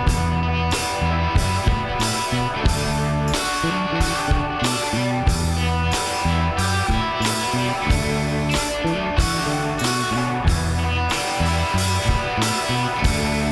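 Background rock music with guitar and a drum kit keeping a steady beat.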